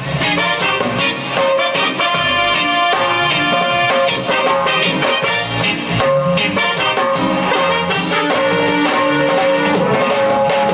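Reggae band playing an instrumental passage without vocals, with horns over drum kit and bass.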